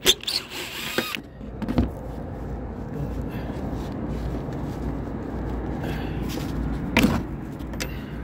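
Cordless drill briefly backing a Phillips screw out of sheet metal, followed by scattered clicks and knocks of handling, one louder knock about seven seconds in, over a steady low rumble.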